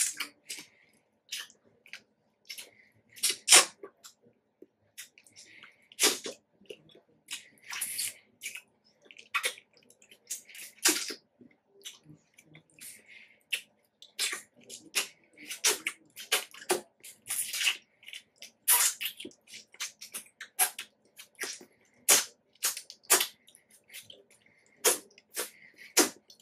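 Wet mouth sounds of a person eating juicy yellow mango: irregular smacks, sucks and slurps of the soft fruit, a few each second.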